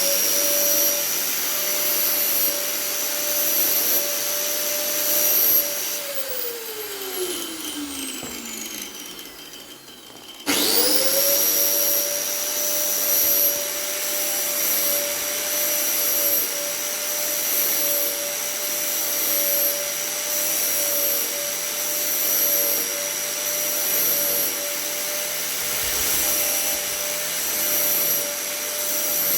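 Angle grinder running at speed, switched off about six seconds in and winding down with falling pitch, then started again about ten seconds in and running steadily. It is grinding down wheel bolts that are long enough to scrape the handbrake spring inside the rear drum brake.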